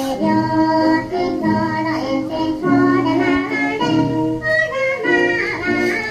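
Children's bon-odori dance song: children singing a melody over instrumental backing, cutting in sharply at the start after a brief lull.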